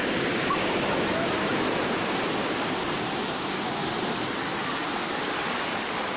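Sea surf washing up a sandy beach: a steady, loud rush of breaking waves.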